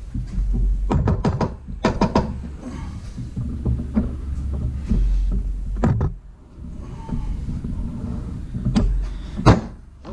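Metal clanks and knocks from a ball joint press tool being worked loose from a steel upper control arm, with a quick run of knocks about a second in and single sharp knocks near six and nine seconds.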